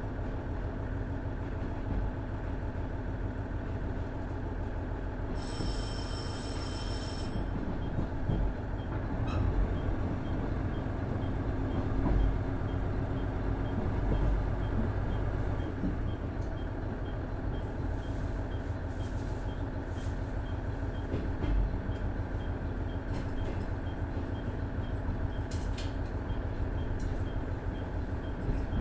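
Cabin running sound of a KiHa 110 series diesel railcar: its 420 PS Cummins DMF14HZA engine drones under a steady low rumble of wheels on rail. About five seconds in, a high steady tone sounds for about two seconds and cuts off suddenly, and a few sharp clicks come in the second half.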